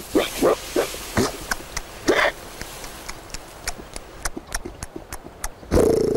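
Short grunting boar calls, then a run of sharp clicks, then a loud, longer grunt near the end.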